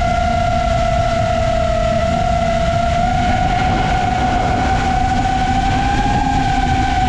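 FPV drone's motors and propellers whining at a steady high pitch that creeps slightly upward, over a low rushing noise.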